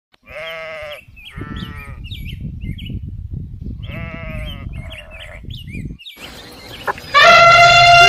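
Goats and sheep bleating: four quavering bleats in two pairs, with small bird chirps in between. About seven seconds in, an elephant's loud, long trumpet begins.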